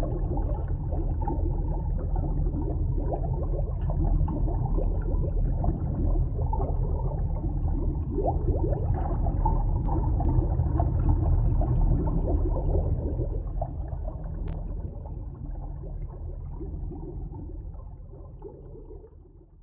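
Underwater water noise: a steady low rumble with gurgling and bubbling, fading out over the last several seconds.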